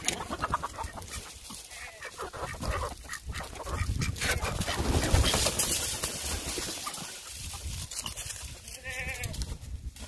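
Chickens clucking and calling, with one louder, arching call about nine seconds in, over a rough rustling noise that is strongest around the middle.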